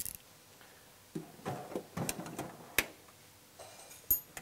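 Scattered clicks, taps and rustles of wrenches and bolt hardware being handled, with a sharp click about three seconds in and a sharp metallic click near the end.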